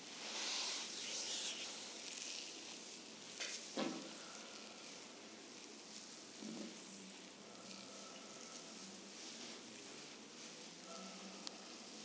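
Hands pressing and sliding over bare skin in a deep tissue massage of the lower back and glutes, a soft rustling hiss picked up close by a microphone worn on the masseur's wrist. The hiss is strongest in the first two seconds, with a couple of short sharp clicks about three and a half to four seconds in.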